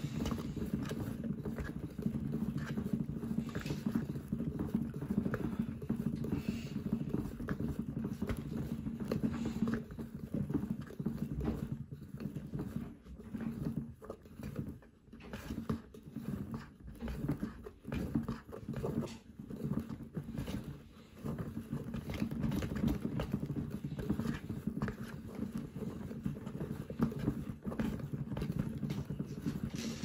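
Small electric motor humming as it turns the drum of a handmade toy washing machine, with the small towel inside tumbling and flopping against the plastic drum in soft, irregular knocks. In the middle the hum repeatedly dips and falters for a few seconds.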